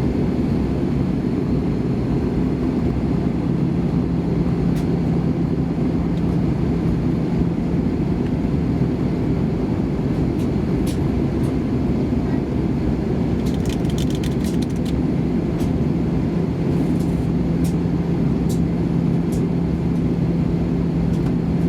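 Steady cabin noise inside an Airbus A320 on the ground with its engines running: a loud, even drone with a steady low hum. A short run of light clicks comes about two-thirds of the way through.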